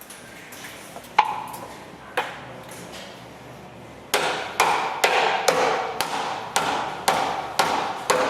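Hammer blows driving the pin through the newly fitted bearings of a swinging arm: two single strikes, then a steady run of blows about two a second from about four seconds in, each with a short metallic ring.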